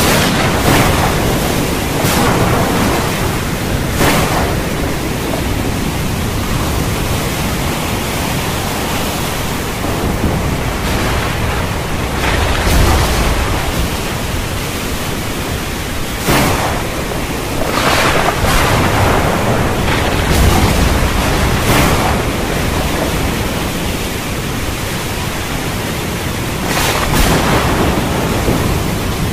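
Loud steady rushing noise that swells every few seconds, with low rumbles now and then.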